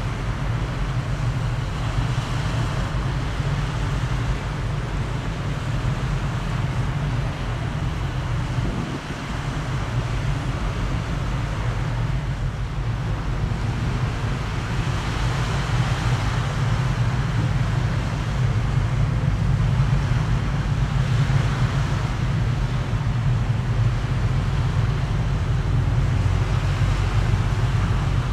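Steady low engine-like rumble with a windy hiss over it, growing a little louder in the second half.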